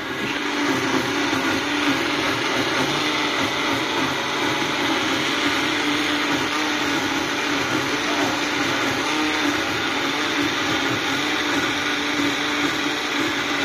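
Countertop blender running steadily at one speed with a hum, blending a liquid passion fruit mousse mixture.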